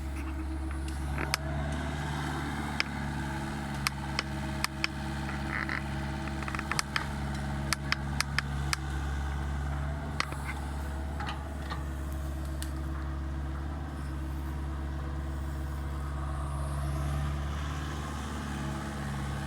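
Mini excavator's diesel engine running steadily, with many sharp clicks and cracks scattered over it, thickest in the first half.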